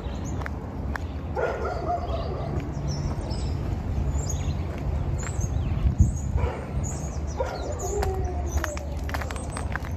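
A dog barking and whining a few times, about a second and a half in and again near the end, with birds chirping over a steady low rumble.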